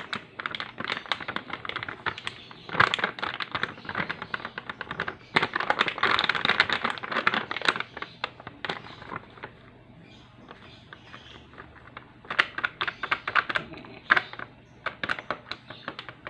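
Plastic flour bag crinkling and crackling as it is tipped and shaken to pour wheat flour into a plastic bowl. The crinkling comes in dense bursts, eases off about halfway through, and picks up again a few seconds later.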